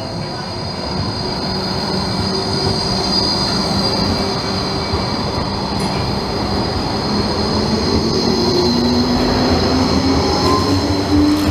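Bombardier Flexity tram passing close on a curve. Its steel wheels squeal steadily against the rails over the running rumble, growing louder as it draws level.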